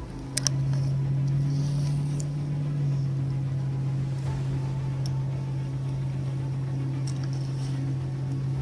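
Boat motor running with a steady low hum, with a few brief faint clicks over it.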